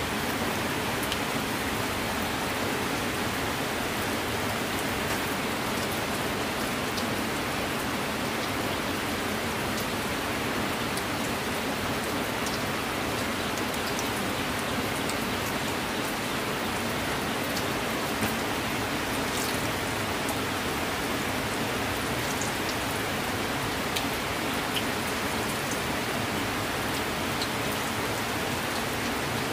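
Steady rain falling, an even hiss with scattered faint drop ticks.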